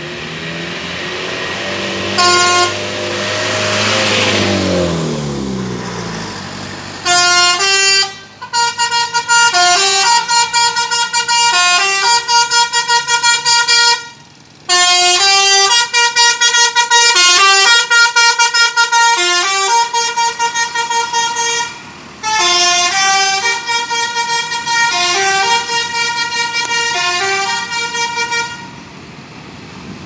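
Tour bus basuri 'telolet' horn playing a flute-like melody of stepped notes. The phrases repeat with short breaks from about seven seconds in until near the end. Before it, engine noise swells and falls in pitch, with a brief horn blip about two seconds in.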